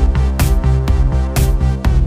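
Electronic background music with a steady beat: a sharp hit about once a second over a sustained bass line and held chords.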